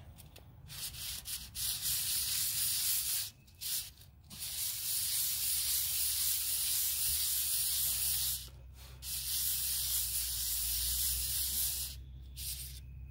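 Glazed steel clutch plate from a Kawasaki ZX-10R rubbed by hand over 80-grit sandpaper on a flat stone, scraping to cut the glaze off and leave a cross-hatch. Three long bouts of sanding with short pauses between them, and a brief stroke near the end.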